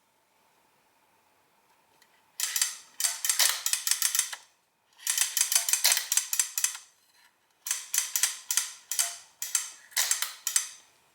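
Add-O-Matic adding machine's wheel mechanism clicking: several quick runs of sharp metallic ratchet clicks, roughly eight to ten a second, as the number wheels are turned through their steps.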